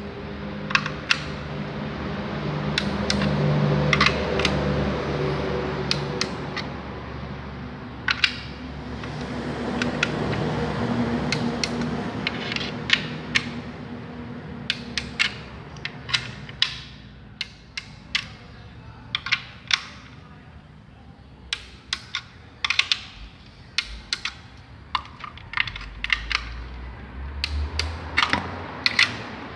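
Click-type torque wrench tightening valve cover bolts one after another: sharp clicks, often in short clusters, from the wrench ratcheting and breaking over at its 10 N·m setting. A steady hum sits underneath, louder in the first half.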